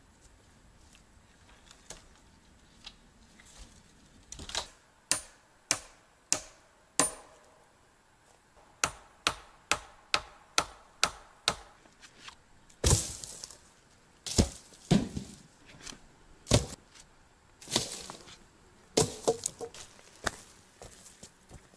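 Repeated sharp blows on wood, at first about two a second, then a few heavier strikes in the middle. Near the end come close footsteps on the forest floor.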